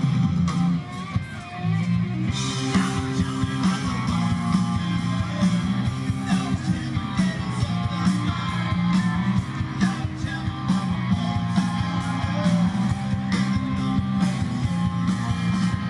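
Live rock band playing: electric guitar, bass and drums with a singer, amplified through a PA. The music drops briefly about a second in, then carries on at full level.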